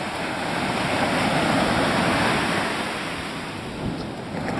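Ocean surf breaking and washing up a sandy beach, a rush of noise that swells over the first two seconds and then fades. Two faint clicks near the end.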